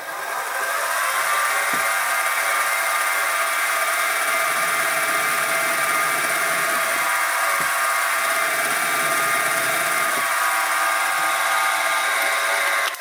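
Sieg SX2P mini mill spindle running with a steady multi-tone whine while drilling into a steel crank web. It winds up in the first second and cuts off near the end.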